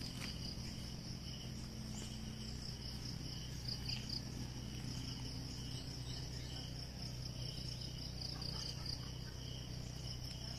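A steady chorus of insects chirping, high-pitched and continuous, with a faint low hum beneath.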